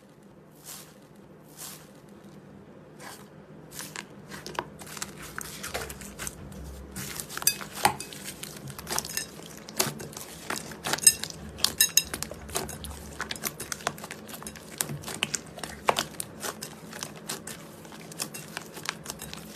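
Slime being squeezed and worked by hand, giving many irregular small clicks and pops over a faint steady hum. The clicks are sparse at first and come thick and fast from about a third of the way in.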